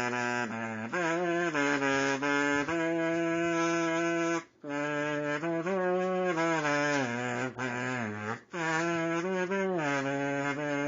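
A buzzy melody played on a Sing-A-Tina, a kazoo-type instrument, going from note to note in phrases with two short breaks.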